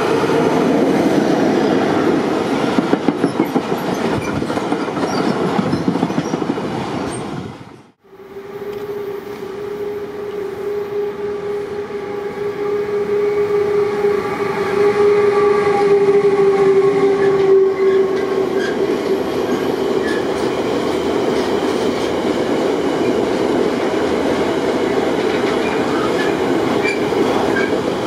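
Freight trains passing through a station. An SBB Re 420 electric locomotive approaches with its wheels clicking over rail joints. After a sudden break about eight seconds in, a second train with a white locomotive gives a steady pitched tone for about eight seconds, and then its loaded car-transporter wagons roll past with a steady clickety-clack.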